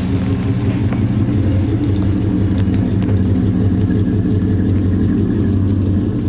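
Vehicle engine running steadily while driving and towing a loaded log trailer.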